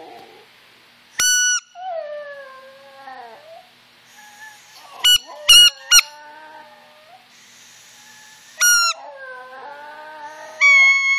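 A Yorkshire terrier howling in long, wavering, falling notes in reply to short, loud, high squeaks from a squeaky toy. One squeak comes about a second in, a quick run of three about five seconds in, one near nine seconds and one at the end, and each set of squeaks is followed by a howl.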